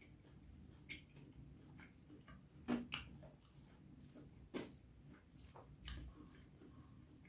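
Close-up wet eating sounds of a person eating spicy beef curry with rice: a few scattered smacks and squelches of chewing and mouthfuls, the loudest about three seconds in and again a little after four and a half seconds.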